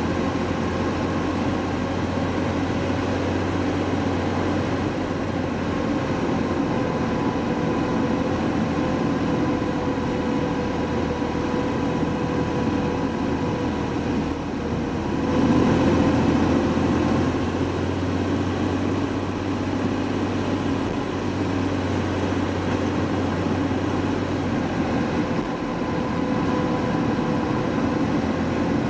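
Mercedes-Benz W124 driving at a steady pace, its engine and tyre noise heard from inside the car, with a steady whine over it. About halfway through, the noise swells briefly, then settles again.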